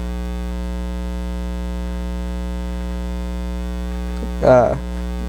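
Steady electrical mains hum with a ladder of overtones, at an unchanging level; about four and a half seconds in, a brief voice sound is heard over it.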